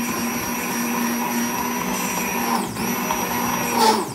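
Handheld immersion (stick) blender running in a jar of thick milk kefir, a steady high motor whine. Its pitch dips briefly about two-thirds of the way through and again at the end as the motor slows and picks back up.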